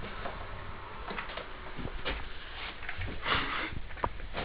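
Rustling and a few light knocks as things are handled and shifted, with a short breath about three seconds in.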